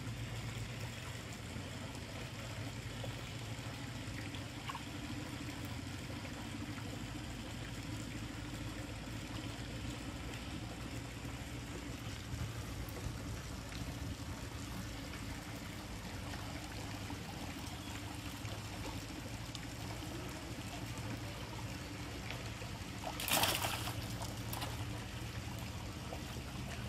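Water trickling and splashing at the shallow edge of a pond as a cast net is hauled in by hand, with a brief louder splash near the end.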